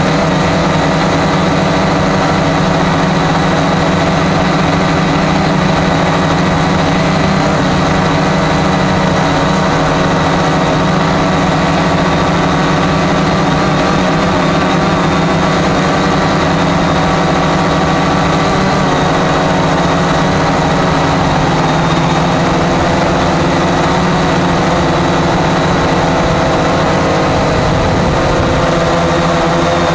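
Cheerson CX-20 quadcopter's four electric motors and propellers whirring steadily in flight, loud and close to the microphone, with slight shifts in pitch as the motors adjust.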